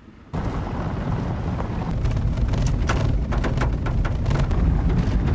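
Truck driving on a dirt gravel road, heard from inside the cab: a steady, loud road and tyre rumble with many sharp ticks of gravel hitting the truck. It starts abruptly about a third of a second in.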